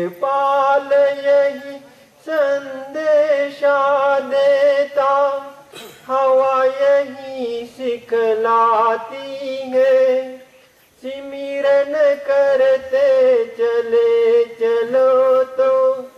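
Devotional bhajan singing: a voice holds long, wavering notes in phrases of a few seconds, with a clear break about eleven seconds in.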